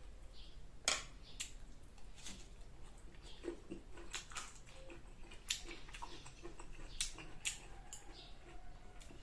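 Close-up chewing of crisp green mango: irregular sharp crunches and wet mouth clicks, the loudest crunch about a second in.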